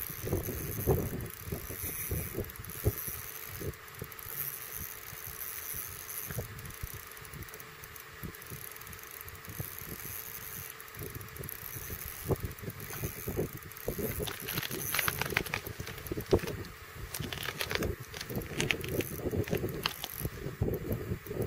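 Wind buffeting the microphone on open ice, a gusting low rumble. From about 14 s to 20 s, clothing rustles and gear clicks and rattles as the angler shifts at the hole.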